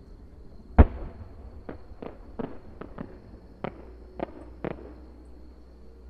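Fireworks shells bursting in the air: one loud bang about a second in, then a string of about eight smaller, sharper bangs over the next four seconds.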